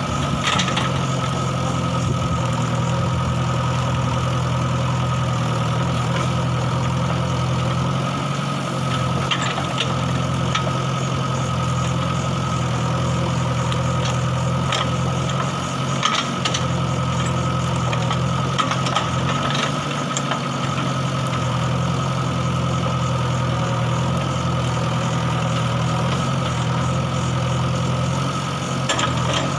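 JCB backhoe loader's diesel engine running steadily at an even pitch. A few short, sharp clanks come through it now and then.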